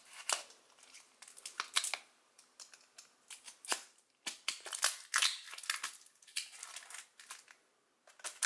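Protective packaging around trading cards being opened by hand: irregular crinkling and crackling rustles.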